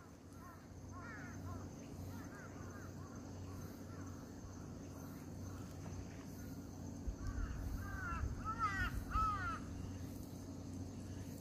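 Crow cawing: a few calls early on, then a louder, quicker run of caws near the end.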